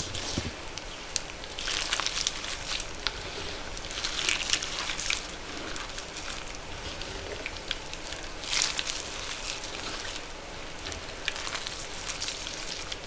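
Wet magnesium carbonate gym chalk crackling and popping: a dense patter of tiny clicks and hiss, with a few louder bursts of crackle about two, four and eight and a half seconds in.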